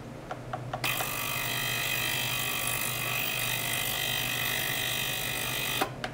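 Ultrasonic oscillation in a small ultrasonic cleaning bath with a probe in the water: after a few short clicks, a harsh buzz with many steady high tones switches on about a second in, runs evenly, and cuts off with a click near the end.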